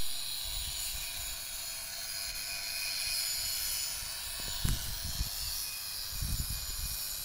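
Outdoor beach ambience: a steady hiss with a faint, thin high whine, and low rumbling gusts of wind on the microphone about four and a half and six seconds in.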